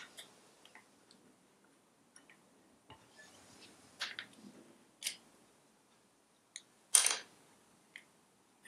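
A few sparse small metal clicks and taps from circlip pliers working the little retaining clip off the end of the shaft that holds a Citroën 2CV engine's auto advance unit, with one louder, slightly longer scraping click about seven seconds in.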